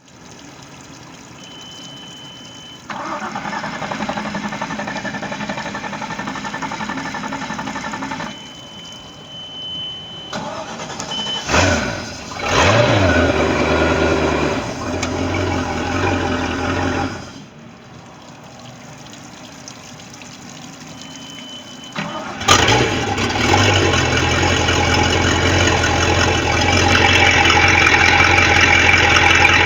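Bayliner boat engine being started three times: each try begins with a short high beep from the key-on warning horn, then the starter cranks. The first crank runs about five seconds without catching; the second catches at once with a quick rev, runs a few seconds and shuts off; the third starts and keeps running steadily.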